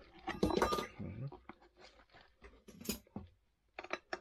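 A tubeless scooter tyre being forced over its rim by hand: rubber crunching and scraping against the metal rim with scattered knocks and clicks, loudest about half a second in and again near three seconds.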